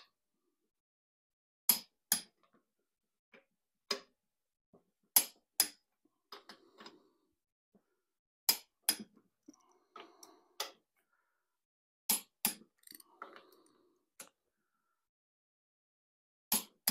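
Click-type torque wrench breaking at its set torque on the main bearing cap bolts of a Ford 200 six-cylinder block: five sharp double clicks, one pair about every three and a half seconds. Softer ratchet ticking between them as the wrench is moved from bolt to bolt.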